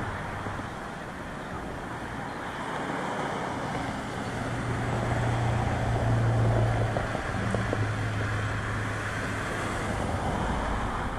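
Road traffic noise: a steady rush with a low engine hum that swells and fades away again about midway.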